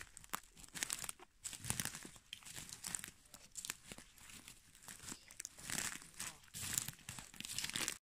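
Footsteps crunching and crackling through dry twigs, pine needles and moss on a pine-forest floor, in uneven strides.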